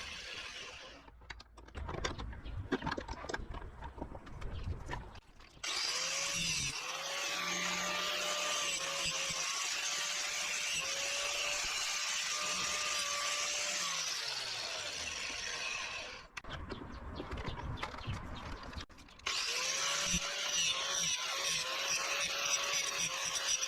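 Angle grinder cutting or grinding a steel stabilizer-link rod: a steady motor whine that sags in pitch as the disc bites, over a loud hiss of abrasive on metal. It stops about a second in, starts again some four seconds later, and stops once more for about three seconds past the middle before running again.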